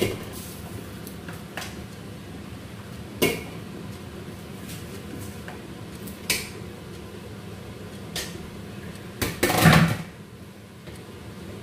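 Kitchen cookware and utensils clattering as a pot, lid and containers are handled and set down: single sharp clinks every few seconds, then a louder, longer clatter near the end, over a steady low hum.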